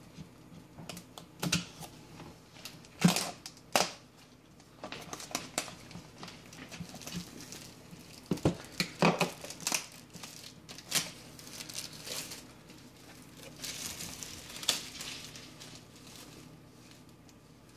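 Plastic shrink-wrap on a Blu-ray box set being cut with a pocket knife and peeled off, crinkling and tearing in irregular bursts with sharp crackles.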